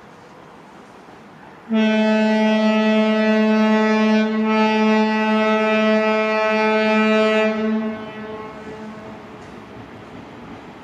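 Approaching train sounding its horn: one long, steady blast of about six seconds that starts sharply about two seconds in and dips briefly partway through. A fainter rumble of the oncoming train follows.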